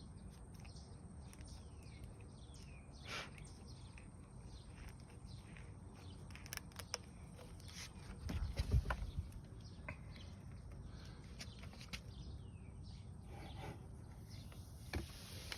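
Outdoor ambience with birds chirping now and then, and a low rumble about eight seconds in.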